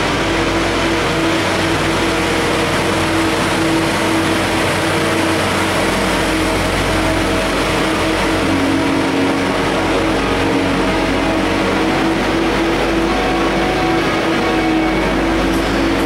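Ice resurfacer's engine running steadily as the machine drives over the rink, a constant loud drone whose pitch drops slightly about halfway through.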